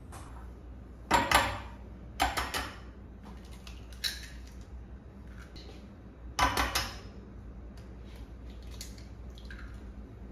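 Eggs being cracked against the rim of a small bowl: short clusters of sharp taps and cracks of eggshell on the bowl, a few seconds apart, with fainter clicks near the end.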